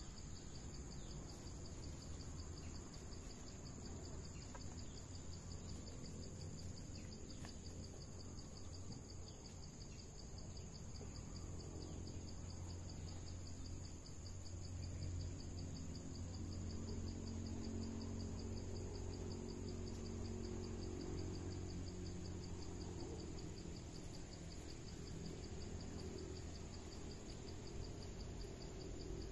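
Steady chorus of forest insects, a fast, evenly pulsing high buzz, over a low background rumble that grows a little louder about halfway through.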